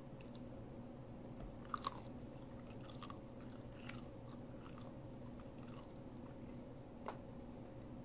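Biting into and chewing a crisp piece of microwave-cooked bacon: a sharp double crunch of the bite about two seconds in, then scattered crunches about once a second as it is chewed.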